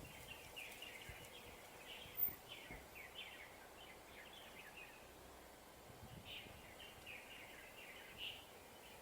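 Faint birds chirping, a steady run of short, high, downward-sweeping calls over low background noise.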